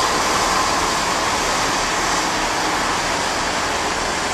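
Class 158 diesel multiple unit moving past at the platform: its underfloor diesel engines and wheels make a steady, loud running noise.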